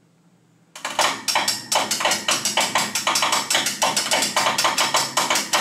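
Hand-cranked ratchet winch clicking rapidly and evenly, several clicks a second, as it hoists a heavy steel plate. It starts abruptly about a second in.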